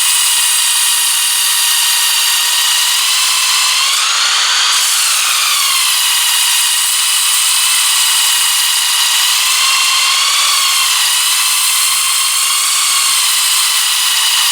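Power tool spinning a sandpaper disc, running with a steady high whine and a gritty hiss as a knife blade is ground against the sandpaper to raise a burr. The pitch rises briefly about four seconds in and wavers slightly twice later on.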